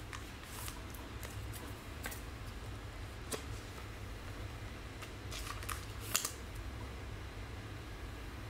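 Trading cards being handled: a few short, soft rustles and clicks as cards slide and tap against each other and their plastic sleeves, the sharpest about six seconds in, over a low steady hum.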